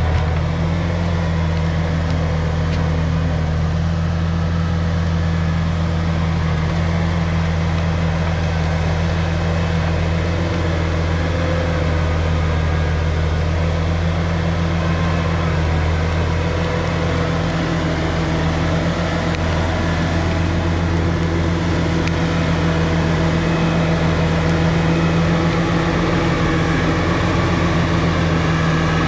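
Caterpillar 953 track loader's diesel engine running steadily as the machine pushes stumps and logs, a constant low drone with a slight rise near the end.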